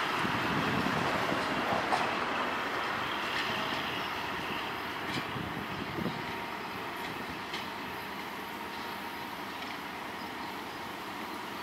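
Passenger train rolling away over the rails, its rumble fading steadily. A few sharp wheel clacks over the rail joints sound along the way.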